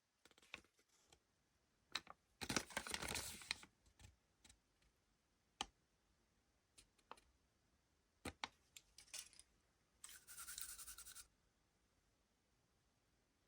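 Quiet handling of a Kinder Surprise egg and its wrapping: two short bursts of scratchy crinkling, one about two and a half seconds in and one about ten seconds in, with a few light clicks between them.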